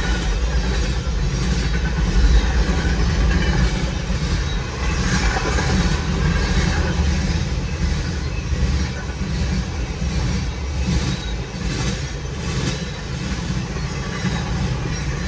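Freight train rolling past: a steady rumble with repeated clicks of the wheels over the rail joints.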